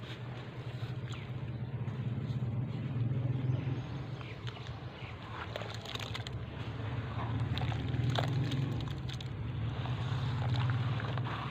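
Hands crumbling wet sand-cement lumps underwater in a plastic basin: soft crackles and splashes as the mix breaks apart and the water is stirred. A steady low rumble runs beneath.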